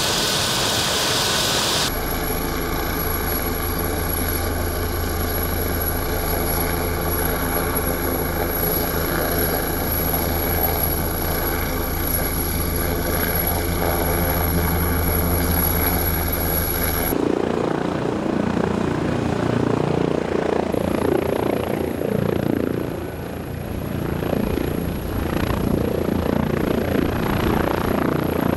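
Helicopter turbines and rotors running: a steady hum with a high turbine whine, then, about seventeen seconds in, a rougher, gusting rotor-blade noise as a red-and-yellow air ambulance helicopter lifts off into a low hover close by.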